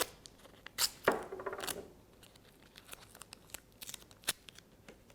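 Sticky tape being pulled off the roll and torn, with paper crinkling as it is pressed down: a few sharp snaps, about a second in and again near the four-second mark, with a short rasp just after the first.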